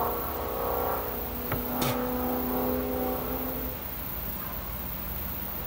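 A steady mechanical hum made of several even tones, stopping about three and a half seconds in. A short click and a brief hiss come just before two seconds in.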